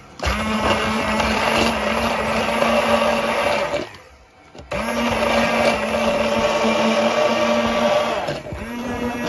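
Immersion stick blender running in a tall beaker, emulsifying oil, parsley and clam liquid into a green mayonnaise. It runs as a steady motor whine, stops for about a second roughly four seconds in, starts again, and dips briefly near the end.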